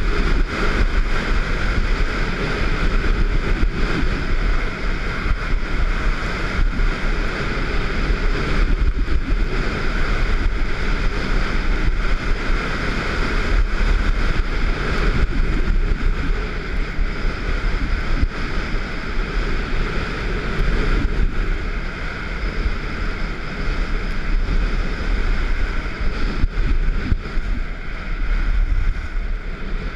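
Wind buffeting the microphone during a downhill ski run, over the steady hiss and scrape of skis carving groomed snow.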